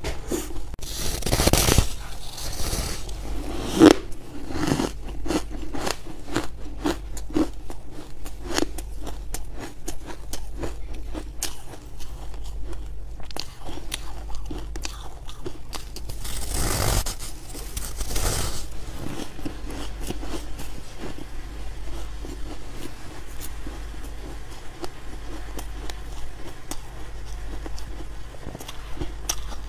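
Hard freezer ice coated in buckwheat powder being bitten and chewed close to the microphone: many small sharp crunches and crackles. Louder, longer bites come about a second in and again past the middle, with a single sharp crack near four seconds.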